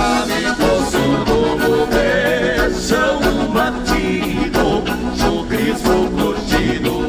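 Live gaúcho band music: an accordion carries the melody over bass and a steady dance beat, in an instrumental break between sung verses.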